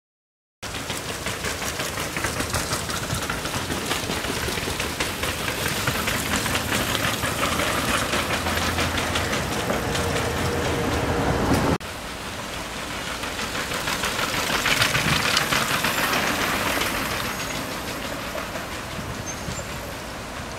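Steady rattling, clattering noise; it drops suddenly about twelve seconds in, then slowly builds again.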